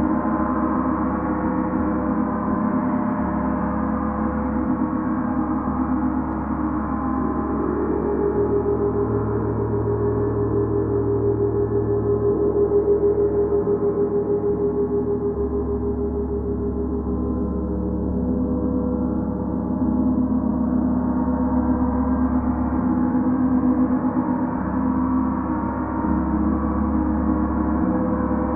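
Large Paiste planetary gong played with a soft mallet, giving a steady, dense wash of ringing overtones that shifts and swells slightly a few times without any sharp strikes.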